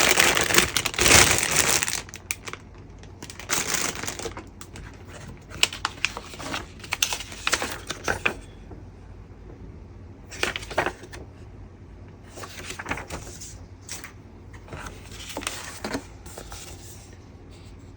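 Plastic runner bags from a Gunpla model kit crinkling and rustling as they are handled. The sound is loudest over the first two seconds, then comes in scattered short bursts.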